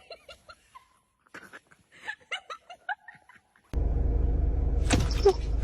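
A person laughing in short, quick bursts, broken by a pause. About two-thirds of the way in this cuts off abruptly into a loud, steady rush of noise with a low hum, with a brief rising squeal just before the end.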